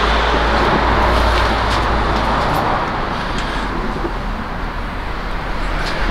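Steady road traffic noise with a deep low rumble.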